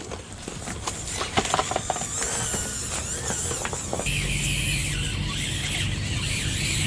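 Electric motor and gear drive of a 1/24-scale RC rock crawler whining as it drives over rocks, with a few clicks in the first two seconds. About four seconds in the whine becomes steady and louder as the truck comes close.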